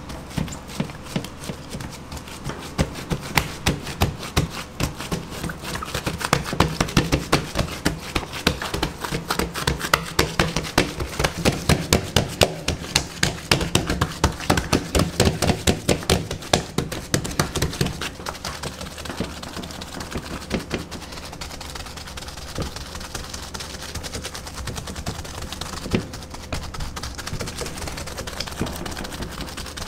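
Gloved fingertips pressing and patting oiled pizza dough out across a large pizza pan: a run of quick taps, thickest in the middle and thinning out in the last third.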